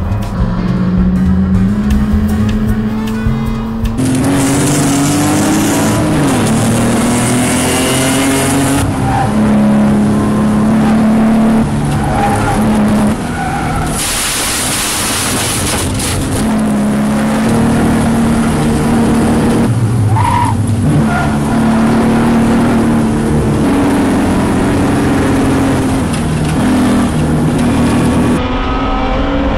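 BMW E30 race cars' inline-six engines running hard on track, the pitch climbing and stepping with gear changes, with tyres squealing and skidding in the corners. The sound changes abruptly several times where the footage cuts from one car to another.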